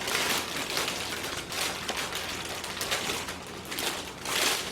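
Irregular crackling and rustling of a package of dry sweet potato glass noodles (dangmyeon) being handled, loudest near the end.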